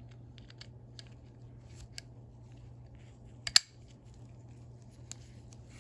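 Light metallic clicks and taps as the steel cover plate is fitted back onto the head of a vintage Snap-on 71-M ratchet, with one sharp click about three and a half seconds in.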